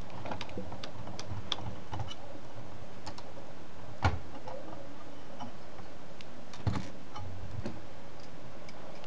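Scattered small clicks and ticks of a precision screwdriver working a tiny screw out of an HP G62 laptop's screen bezel by the hinge, with two louder taps about four and about seven seconds in.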